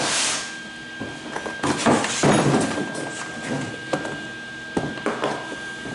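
Irregular knocks and clatter of metal tools being handled, loudest about two seconds in, with a few sharp clicks near the end. A faint steady high whine runs underneath.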